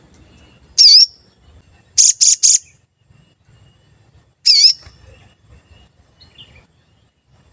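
Sogon bird calling loudly in short high chirps: a wavering chirp, then a quick run of three sharp notes, then another wavering chirp, with pauses between.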